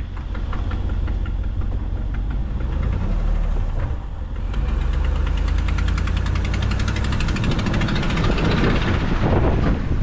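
2016 Ram 2500 pickup engine running with a sharp, fast ticking from a leaking exhaust manifold, a leak that is getting worse. About halfway through the engine picks up speed, and the ticking gets louder and quicker.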